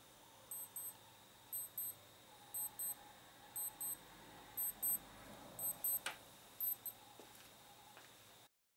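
Electronic alarm beeping: short, high-pitched double beeps about once a second, with a single sharp click about six seconds in. The beeping stops abruptly near the end.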